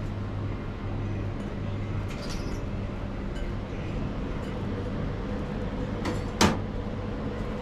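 Steady low machine hum from the cooking station, with one sharp knock, the loudest sound, about six and a half seconds in.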